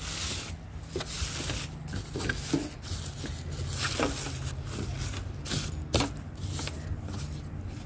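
Thin plastic tablecloths crinkling and rustling, in irregular crackles and scrapes over a steady low rumble.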